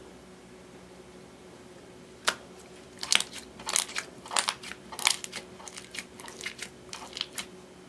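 Red slime made from clear slime and eyeshadow being squished and pressed by hand. A single sharp pop comes about two seconds in, then a quick run of wet crackles and snaps as trapped air pockets burst under the hand, for about four seconds.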